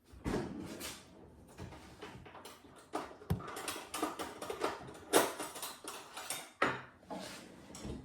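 Irregular clinks, taps and knocks of dishes and utensils being handled in a kitchen, the two loudest knocks about five and six and a half seconds in.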